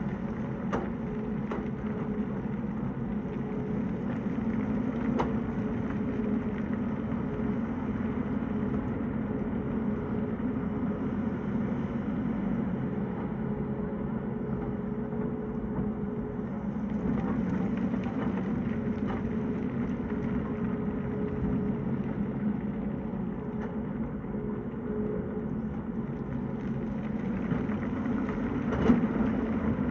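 Tata Hitachi excavator's diesel engine running steadily, with a few short knocks and one louder knock near the end.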